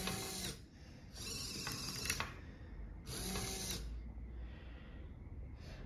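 Two MG996R hobby servos whirring and clicking through their gears in three short bursts, winding a bungee cord to pull the trigger of a plastic spray bottle.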